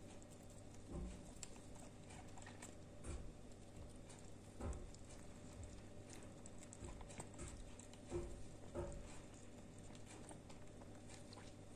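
Two kittens eating: faint, irregular smacking and chewing clicks over a steady low hum.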